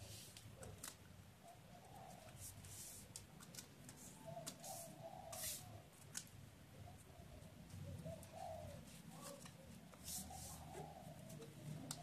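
A sheet of paper being smoothed and creased by hand on a hard floor, giving short, faint crackles and rustles. Faint bird calls come a few times in the background.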